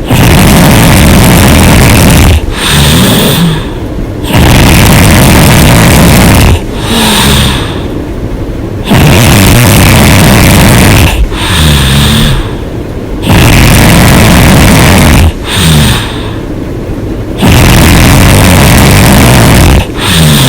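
A woman snoring loudly with her mouth open: about five long snores, each about two seconds, coming every four to five seconds. Each is followed by a shorter breath out with a wavering pitch.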